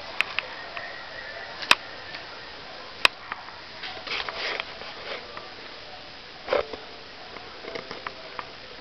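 Kittens playing among plastic toys: three sharp clicks in the first three seconds, then lighter taps and soft sniffing.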